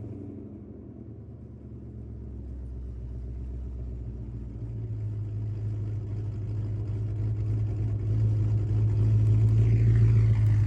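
Ford Crown Victoria's V8 running steadily at idle, a low, even hum that grows gradually louder.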